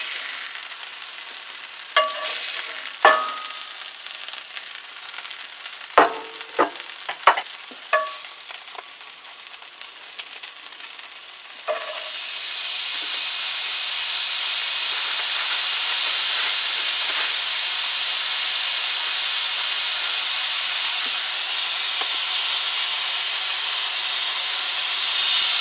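Thin slices of beef frying in a hot cast-iron skillet. A faint sizzle with a few sharp clicks comes first; about twelve seconds in, as the meat is laid in, the sizzling turns loud and steady.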